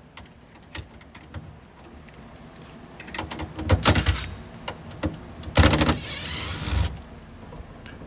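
DeWalt Atomic cordless impact driver with a 5/16 nut-driver bit running in two bursts of about a second each, backing out the two screws of a refrigerator door's bottom hinge bracket. Light clicks of the bit being seated come first.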